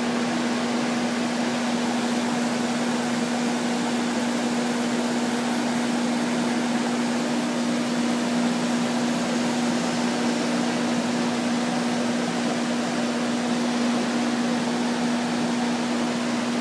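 Samsung 18,000 BTU window air conditioner running: a steady rush of fan air with a steady hum under it.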